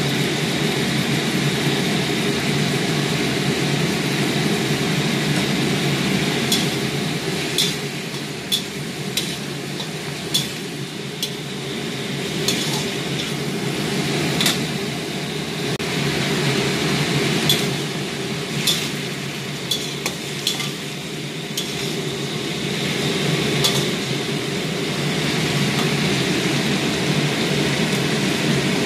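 Cabbage and dried pork stir-frying in a wok over a steady sizzle, a metal spatula scraping and clinking against the pan. The sharp clinks come often from about six seconds in until a little over two-thirds through.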